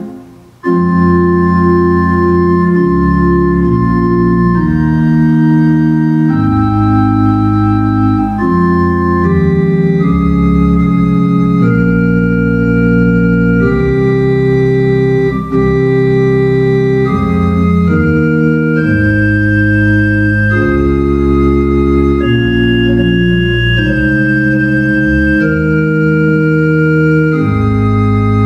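Pipe organ playing a slow piece in sustained, held chords that change every second or two. A brief break near the start, then a new phrase.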